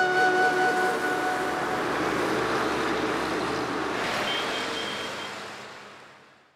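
A truck driving along the road: engine and tyre noise that rises and holds, then fades away toward the end. A flute melody dies out in the first second or two, and a short row of high beeps comes a little past the middle.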